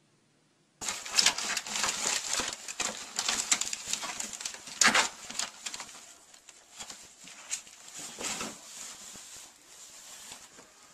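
A ferret wrestling a towel across a woven mat: rustling cloth and a rapid, uneven run of scrabbling clicks. It starts suddenly about a second in, is loudest for the first few seconds, then tapers off.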